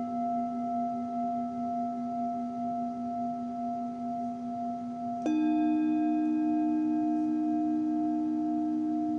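Singing bowls ringing with long sustained tones, one of them wavering in a slow pulse. About five seconds in, another bowl is struck, adding a new, louder set of ringing tones over the fading ones.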